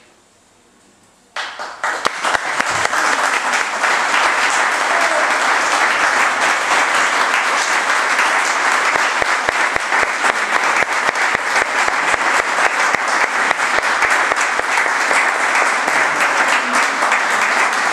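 An audience applauding. The clapping starts suddenly about a second in, after a moment of quiet, and keeps up steadily.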